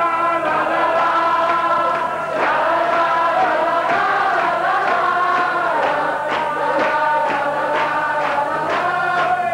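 Several voices singing together over music in long held notes; from about six seconds in, a steady beat joins in.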